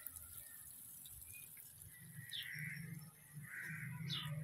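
Quiet outdoor background with a few short, faint bird chirps, and a faint low hum that comes in about halfway through.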